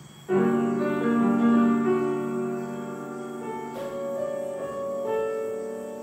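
Upright piano being played: a loud chord struck about a third of a second in and left ringing, with further notes entering near four and five seconds in.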